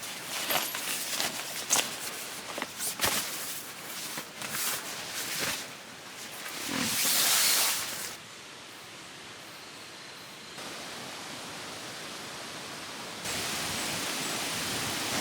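A few seconds of scattered clicks and rustling, a loud rush of noise, then the steady rushing of a mountain valley stream that gets louder in a couple of sudden steps.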